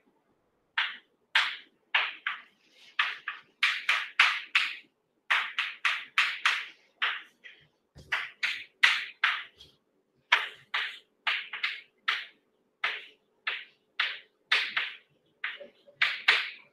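Chalk writing on a blackboard: a quick, irregular run of short scratching strokes and taps, a few a second, with brief pauses between words.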